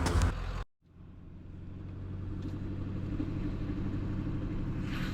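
Truck engine running with steady road rumble while driving, coming in after a sudden cut and building slightly in level.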